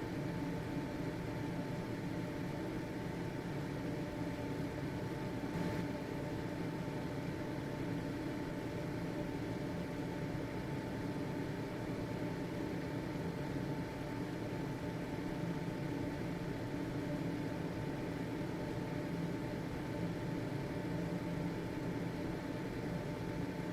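Household exhaust fan running steadily: an even whirring rush with a thin, constant whine on top.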